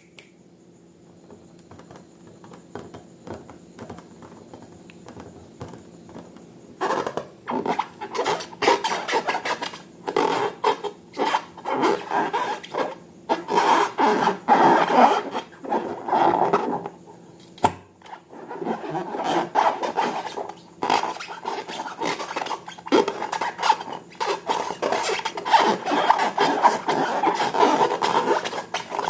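Slime being mixed and worked: wet, crackly squishing and scraping that starts about seven seconds in, stops briefly with a click a little past the middle, then goes on.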